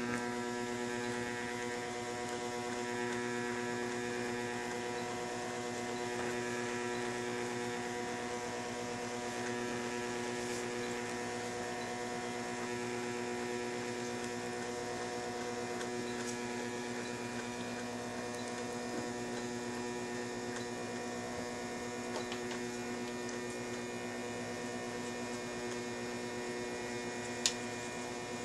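Plustek MobileOffice S420 portable sheet-fed scanner running a scan, its motor drawing the paper through with a steady whine of several tones that starts abruptly. A single sharp click comes about a second before the end.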